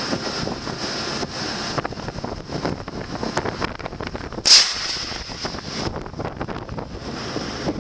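Hand-held parachute distress rocket launching: one short, sharp, loud whoosh about four and a half seconds in. Steady wind on the microphone and sea noise run underneath.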